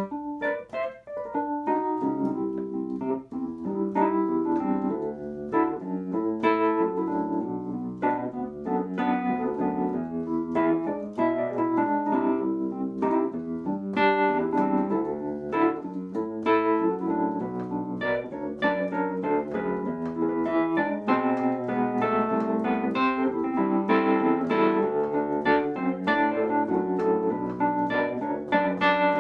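Electric piano played solo, a flowing instrumental passage of chords and melody notes with no singing.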